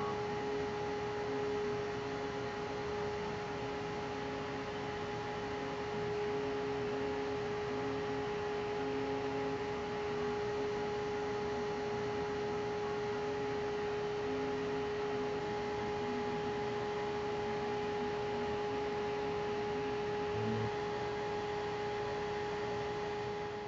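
Homemade CNC machine running a laser engraving: a steady whine over a hiss of moving air from its fans, with faint stepping notes from the motors coming and going as the laser head traces the design.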